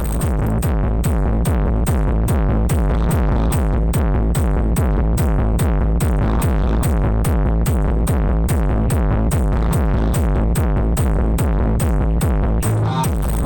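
Electronic dance music with a heavy bass beat and fast regular hi-hat clicks, played loud through an SPL Audio sound system. The full beat comes in at the start, and the bass drops out briefly near the end.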